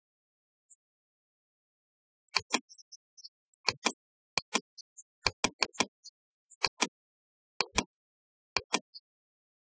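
Computer mouse button clicks, sharp and short, often in quick pairs, about a dozen of them starting a couple of seconds in.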